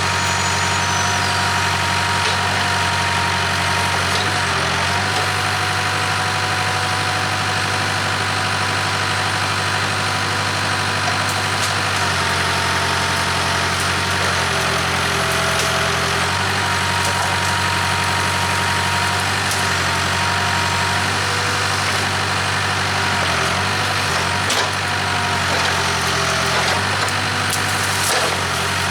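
Case 580K backhoe's diesel engine running steadily, its pitch dipping briefly a few times.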